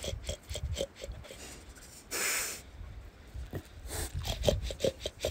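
A pig snorting in short, rapid bursts, with one longer breathy snort about two seconds in.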